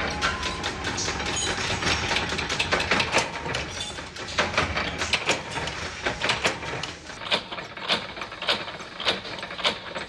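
Mechanical power press punching holes in a steel strip: sharp metal strikes over the steady run of the machine, settling into an even beat of about one and a half to two strokes a second in the second half.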